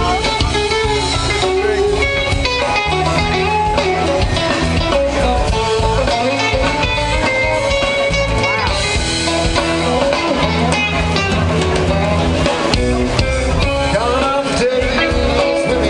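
Live band playing amplified music, with guitar lines over a steady bass.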